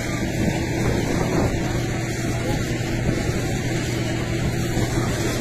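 An engine running steadily with a low hum, over a rough noisy haze.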